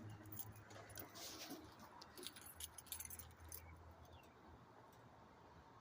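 Near silence with faint scattered clicks and light rustling, thinning out after about four seconds.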